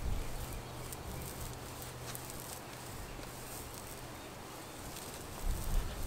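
Paint roller on an extension handle rolling paint onto the wooden greenhouse framing with a faint sticky hiss, and being reloaded in the paint tray. Low thumps come right at the start and again about five and a half seconds in.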